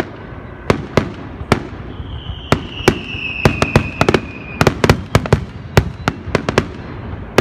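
Aerial fireworks shells bursting with sharp bangs, a few at first, then several a second in a quick barrage over the last few seconds. A long whistle, dropping slightly in pitch, starts about two seconds in and lasts about two and a half seconds.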